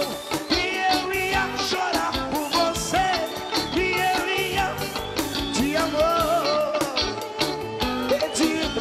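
Live brega band playing: a male singer singing over electric guitar, bass and drums with a steady beat.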